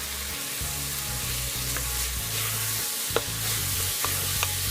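Garlic and a spiced onion masala sizzling as they fry in oil in a pan, with a few sharp clicks of a utensil tapping the pan as it is stirred.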